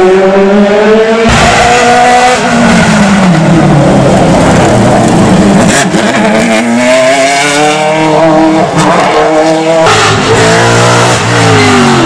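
Race car engines accelerating hard up a hill climb course, each engine's pitch climbing through the revs and dropping back at every upshift. The sound switches abruptly to another car about a second in and again near the end.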